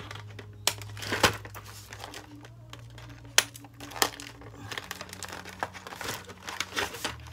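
Cardboard doll packaging being handled: rustling and crinkling with a scatter of sharp clicks and snaps as the doll on its cardboard insert is slid out of the box and worked loose. The loudest snaps come about a second in and again past three seconds.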